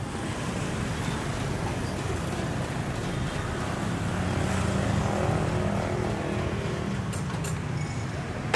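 Street traffic: a steady hum of engines, one passing louder around the middle, with a few sharp clicks near the end.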